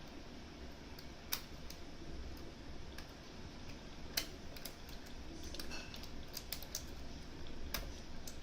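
Scattered small clicks of custom picks working the discs inside a Mosler M5700 safe deposit box lock. The clicks come irregularly, and the sharpest are about a second and a half in and about four seconds in.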